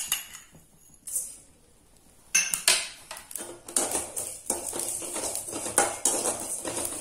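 A perforated steel ladle scraping and clinking against a metal kadai as fennel seeds are stirred while dry-roasting. A tap or two comes first, then after a short pause a steady run of strokes, about two or three a second, from about two seconds in.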